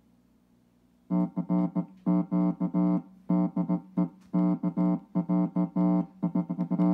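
A repaired Ampeg Portaflex B-15-N tube bass amplifier plays music through its speaker after about a second of near quiet: one note repeated in a steady rhythm, a sign that the amp is passing signal again.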